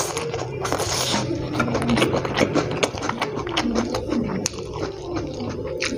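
A man slurping fried instant noodles off chopsticks, with two loud sucking slurps near the start, then wet chewing and lip smacks.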